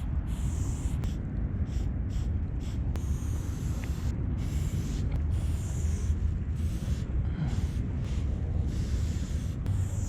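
Aerosol spray paint can hissing in a string of short bursts, about one to two seconds each with brief gaps between, over a steady low rumble.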